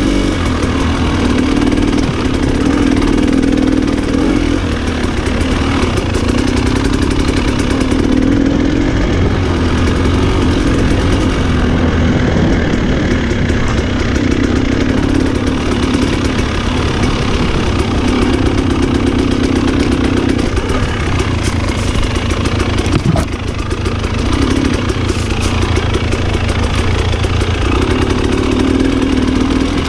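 Off-road motorcycle engine running on a trail ride, its note swelling and easing every few seconds as the throttle is opened and closed.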